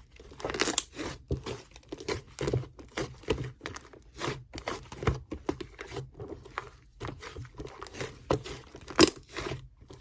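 Sherbet slime being handled and squished, making irregular crackling and popping.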